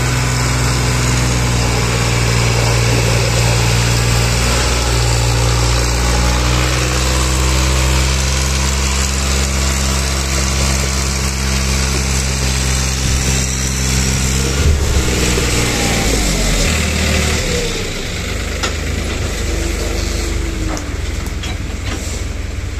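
New Holland 3630 tractor's three-cylinder diesel engine running steadily as it pulls two trailers heavily loaded with sugar cane. The engine note shifts about two-thirds of the way in and then drops away as the tractor passes, leaving the trailers rolling by with a few knocks near the end.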